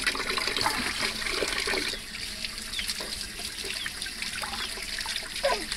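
Water running from an outdoor tap and splashing over muddy cassava roots being washed by hand. It is a little louder in the first two seconds.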